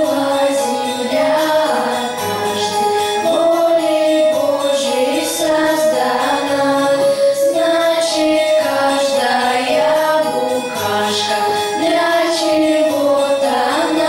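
A song performed live by a girls' vocal group singing into microphones over instrumental backing.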